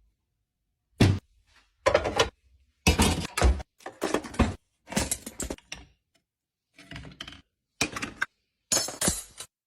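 Dishes and utensils clinking and clattering as they are lifted out of a dishwasher and set down, in about ten short separate bursts with dead silence between them.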